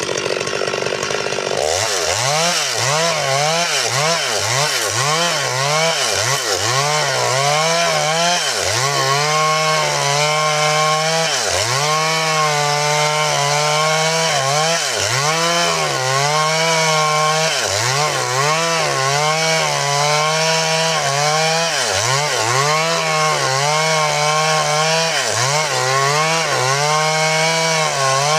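Stihl MS 382 two-stroke chainsaw cutting wood at high revs, its engine pitch dipping and climbing back every second or two as the chain bites and frees up. The cutting pattern sets in about two seconds in.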